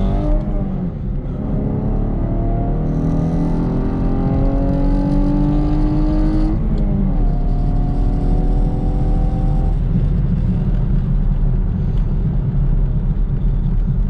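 Chevrolet Camaro engine at full throttle through a drag-strip pass, heard from inside the cabin: its pitch climbs steadily and drops sharply at each upshift, once just after the start and again about six and a half seconds in. About ten seconds in the engine note falls away as the driver lifts off past the finish, leaving steady road and wind rumble.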